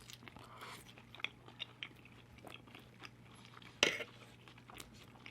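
A person chewing fries close to the microphone, with small wet mouth clicks. One much louder click comes a little before four seconds in.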